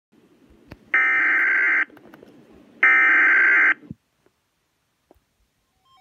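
Two bursts, each just under a second and a second apart, of SAME digital alert header tones from a weather radio's speaker, a harsh buzzing screech, with faint static hiss between them. The data bursts carry the coded emergency alert, here a flash freeze warning, that sets off the radio's alarm.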